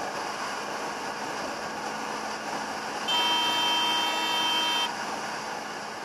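A newly installed Wolo electric air horn on a motorcycle sounds one steady blast for just under two seconds, about three seconds in, over steady wind and road noise from the moving bike.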